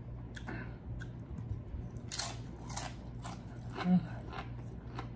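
Close-miked chewing of food, with crisp crunches coming about twice a second in the second half. A short low hum sounds near four seconds in.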